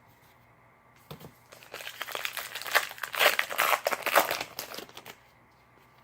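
Plastic wrapper of a baseball card pack crinkling and tearing as the pack is opened. The crackling starts about a second in, is loudest in the middle, and stops about five seconds in.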